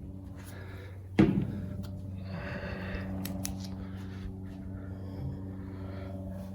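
A single metallic clunk about a second in, then a short scrape and a few light clicks as the gas tank of a 1968 Corvette is opened to look inside, over a steady low hum.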